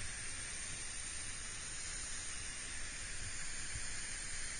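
Steady hiss of a hand sprayer misting water onto an air-conditioner's evaporator coil to rinse off coil cleaner.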